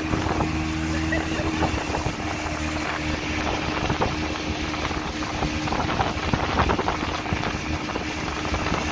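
A small boat's 40-horsepower outboard motor running steadily at one even pitch, with a constant rush of wind and water.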